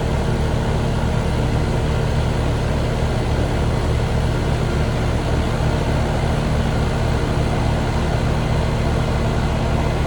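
Running machinery: a steady low hum with a constant rushing noise over it, unchanging throughout.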